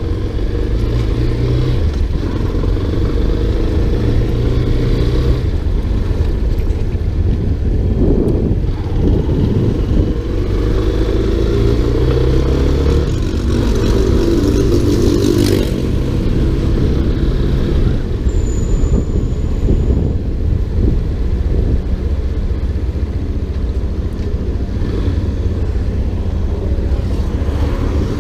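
Motorcycle engine running as the bike rides along town streets, its pitch stepping up and down several times with the throttle and gear changes.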